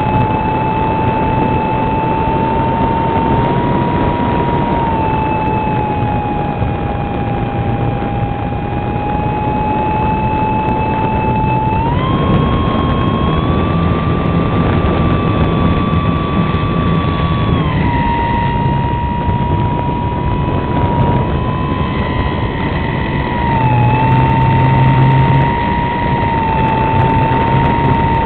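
480-size electric motor and propeller of an RC SIG Riser model glider whining steadily over heavy rushing wind noise. The whine steps up in pitch about twelve seconds in, holds, and drops back near eighteen seconds.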